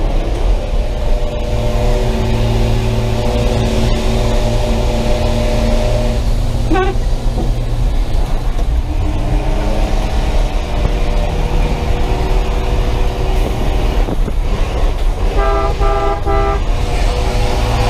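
Chevrolet school bus engine running steadily at speed, heard from inside the cab, with road noise under it. Near the end a vehicle horn toots for about a second.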